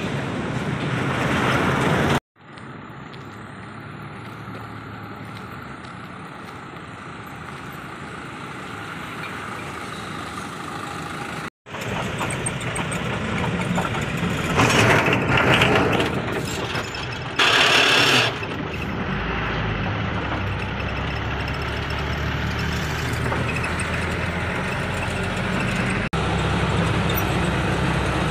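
Road traffic and vehicle engine noise heard while riding through city streets, a steady rushing hum with two louder bursts about halfway through. The sound cuts out briefly twice, near the start and just before halfway.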